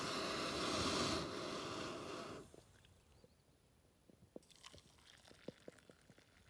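Canister camp stove burner running under a steel pot, a steady rushing noise that cuts off abruptly about two and a half seconds in as the gas is turned off. Then faint clicks of the steel pot being handled, and hot water poured into a mug near the end.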